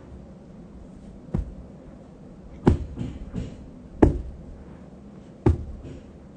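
Homemade footstep sound effect for slow walking: four heavy thuds spaced about a second and a half apart, with a couple of lighter knocks just after the second one.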